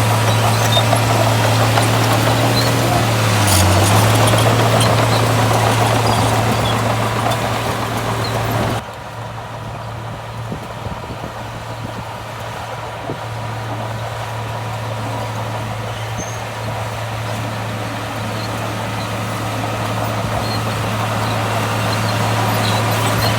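Heavy diesel earthmoving machinery running with a steady low engine hum. About nine seconds in, the sound suddenly turns quieter and duller, then slowly grows louder again.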